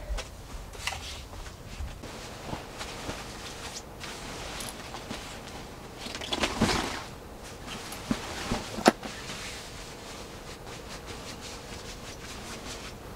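Rustling of fabric bedding and camping gear being handled and folded on a sleeping mat, with scattered light knocks and clicks. The loudest rustle comes about six to seven seconds in, and there is a sharp click just before nine seconds.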